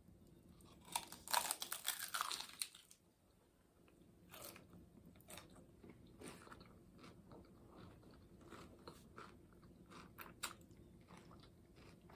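A person eating a taco: one loud crunchy bite about a second in, crackling for a couple of seconds, then quieter chewing with scattered soft crunches and mouth clicks.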